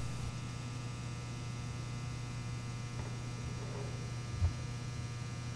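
Low, steady electrical mains hum on the recording, with a single faint soft knock about four and a half seconds in.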